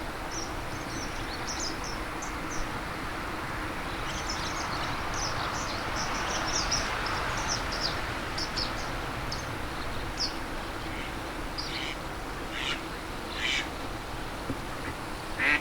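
Japanese wagtail fledglings calling: a quick series of short, high chirps, with a few louder calls reaching lower near the end.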